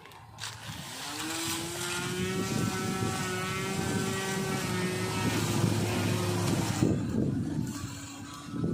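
Motor of a homemade lawn mower spinning up about a second in, then running at a steady pitch with a hum beneath it. Its tone drops away about two seconds before the end, leaving a rougher rumbling noise.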